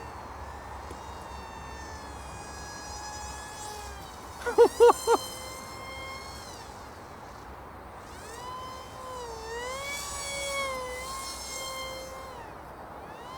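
Whine of the Eachine F-22 Raptor's small one-cell brushless motor and pusher propeller in flight, its pitch gliding up and down with throttle and the jet's passes. About four and a half seconds in come four short, loud beeps.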